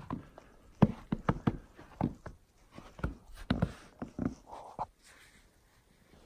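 Footsteps on the snow-covered plank deck of a footbridge: an uneven run of dull steps that stops about five seconds in.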